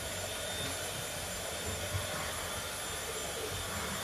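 Steady rushing background noise with a low hum underneath, even throughout, with no distinct sounds standing out.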